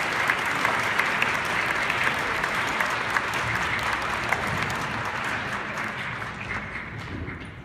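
Audience applauding, the clapping thinning and dying away over the last few seconds.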